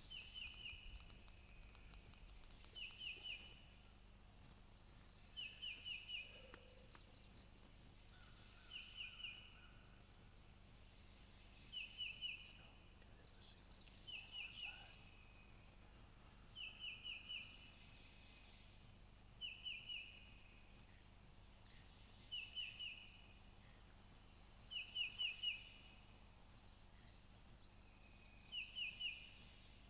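A songbird singing the same short phrase of three or four quick high notes about every three seconds, with fainter, higher bird calls behind it.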